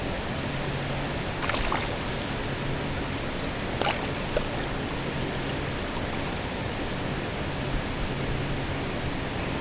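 Steady rush of flowing water, with a few brief sharp clicks or splashes and a faint low hum that comes and goes.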